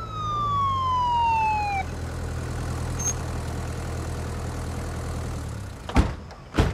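Land Rover Defender ambulance's siren winding down, one tone falling steadily in pitch and stopping about two seconds in, over the engine running until shortly before the end. Then two sharp knocks as the rear door is opened.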